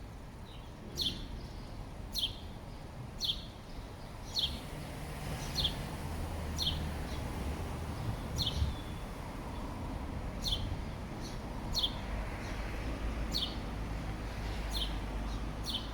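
A sparrow chirping: short single chirps that drop in pitch, repeated about once a second, with a couple of longer gaps. Under it runs a low, steady rumble.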